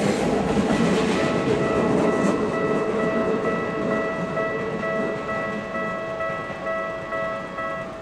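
Keikyu 1000-series stainless electric train running through a level crossing, its rail noise fading as it pulls away. Over it the crossing's electronic warning bell rings in an even, repeating pattern, then stops just before the end once the train has cleared.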